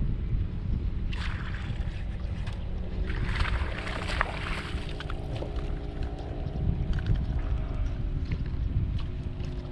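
Boat's outboard motor running steadily under a heavy low rumble of wind on the microphone, with two brief rushes of hiss about a second in and in the middle.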